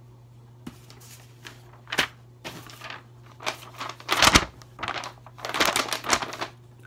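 A sheet of paper being unfolded and handled, rustling and crinkling in a series of short bursts, the loudest a little over four seconds in.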